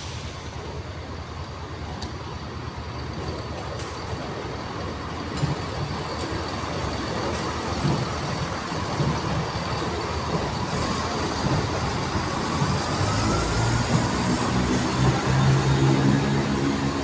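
Class 170 Turbostar diesel multiple unit moving along the platform, its rumble getting steadily louder as it comes closer. A faint rising whine comes in partway through, and the low hum of its diesel engine grows strong near the end.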